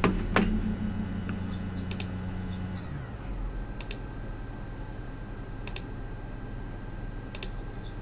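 Computer mouse button clicks: two heavier clicks at the start, then four quick press-and-release clicks about every two seconds as setup wizard buttons are clicked. Under them a steady low hum stops about three seconds in, and a faint higher whine glides down and then holds steady.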